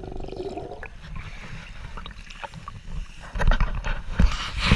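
Muffled underwater sound with scattered clicks. From about three seconds in, water sloshes and splashes against the camera as it breaks the surface beside a boat hull, with several heavy low thumps.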